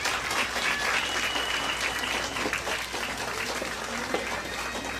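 Spectators clapping, with voices calling out among the applause.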